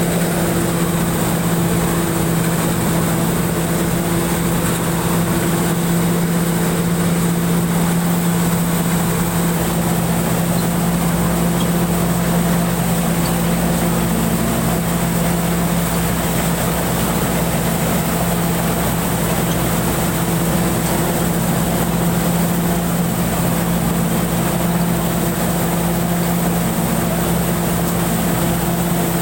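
Rice combine harvester running steadily: a constant engine hum with a faint high whine above it that does not change.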